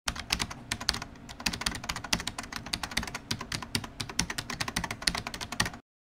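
A rapid, irregular run of sharp clicks, many a second, that stops abruptly shortly before the end.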